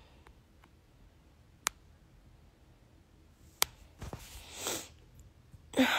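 Quiet room tone broken by two sharp clicks about two seconds apart, then a short rising hiss and, near the end, a louder hiss that fades.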